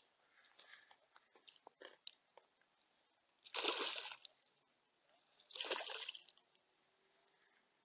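Two short splashes of water about two seconds apart, with faint small clicks and ticks before them.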